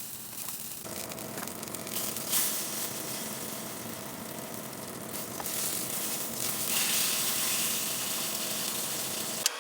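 Food frying in a pan, a steady sizzle that grows somewhat louder in the last few seconds.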